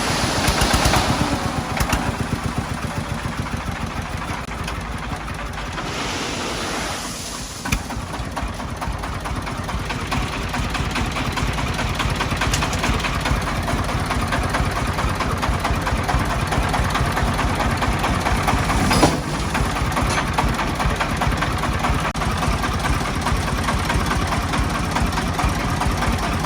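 A công nông farm truck's single-cylinder diesel engine running with a rapid, even putt-putt pulse, getting somewhat louder partway through, with one brief sharp knock about two-thirds of the way in.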